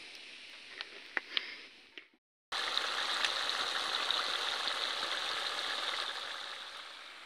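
Chicken curry sizzling in a pot over a wood fire: a steady, crackling hiss that comes in abruptly after a brief silence about two and a half seconds in. Before the silence there is a fainter hiss with a few sharp ticks.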